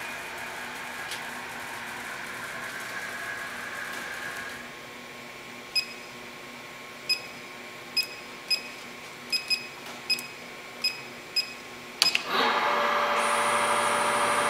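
Haas VF-3 vertical machining center: a steady servo whine as the Z axis raises the spindle head, stopping about four and a half seconds in. Then about nine short, irregularly spaced beeps from the control's keypad. About twelve seconds in, a clunk and the geared spindle starting up with a steady, louder whir, a high whine joining it a second later.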